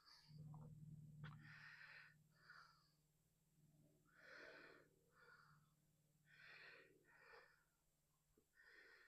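Faint breathing of a person close to the microphone, in and out about every two and a half seconds. A low hum and a couple of light clicks come in the first few seconds.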